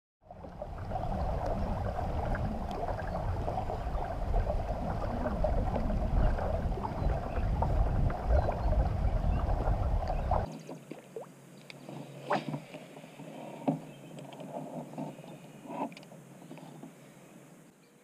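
A fishing kayak on open water picked up by its onboard camera: a loud, steady rushing, rumbling noise of wind and water for about ten seconds. Then comes an abrupt change to a quieter background with a few light clicks and knocks as fishing tackle is handled.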